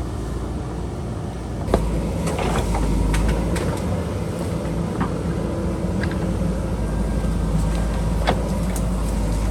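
Diesel engine of a JCB backhoe loader running steadily under working load. Sharp knocks and clatter of the machine digging start about two seconds in and recur through the rest.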